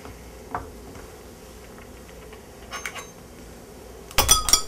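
Metal spoon stirring water in a glass beaker: a couple of light taps, then about four seconds in a quick run of sharp, ringing clinks as the spoon strikes the glass.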